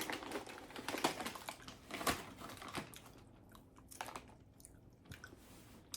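Close-miked chewing of a tuna melt sandwich: irregular wet clicks and crunches, busy at first and thinning out after about halfway.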